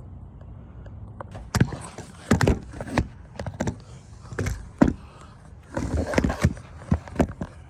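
Irregular knocks, clunks and short scrapes of engine parts being handled and worked loose by hand, starting about a second and a half in and going on in uneven bursts until near the end.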